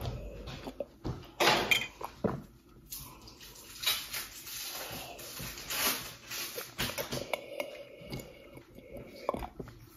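A child eating raw vegetables close to the microphone, in irregular bursts of crunching and chewing. The loudest crunches come about a second and a half in.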